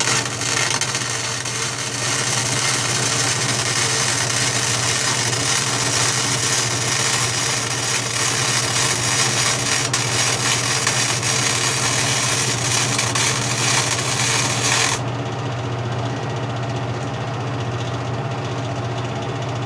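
Century FC90 wire-feed welder laying a test bead at low voltage and wire feed settings: a steady arc crackle and hiss that stops abruptly about 15 seconds in. A steady low hum from the welder runs underneath throughout.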